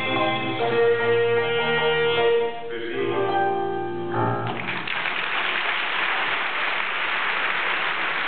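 The closing bars of a cabaret song for voice and grand piano end on sustained notes. About four and a half seconds in, the audience breaks into steady applause, which rings out in the reverberant concert hall.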